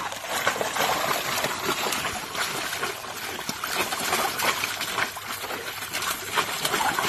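Water splashing and sloshing in a plastic kiddie pool as a German shepherd paws and stomps in it, with irregular splashes throughout.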